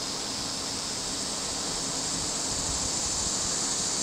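Steady high-pitched drone of insects in summer trees, heard as an even hiss with no breaks.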